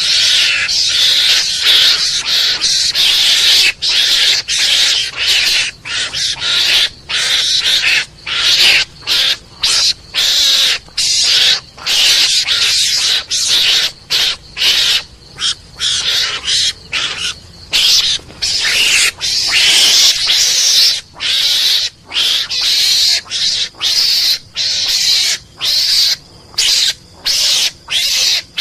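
Mongoose (garangan) lure call: harsh, raspy animal chattering in rapid bursts broken by many short gaps, repeated on and on.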